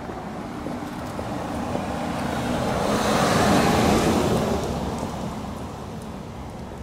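A car driving past, its noise growing louder to a peak midway and then fading away.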